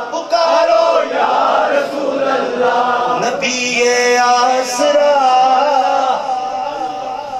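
A man singing a devotional manqabat in qawwali style into a hand microphone, drawing out long, held, wavering notes with no clear words.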